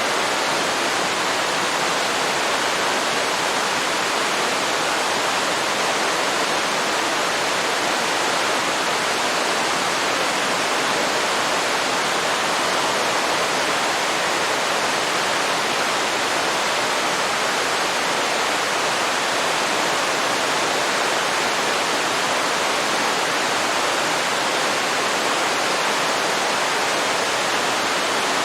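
Waterfall pouring into a river: an even, unbroken hiss of falling water.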